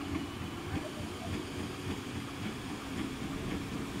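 British Rail Class 313 electric multiple unit pulling away, a steady motor hum over the low rumble of its wheels on the track.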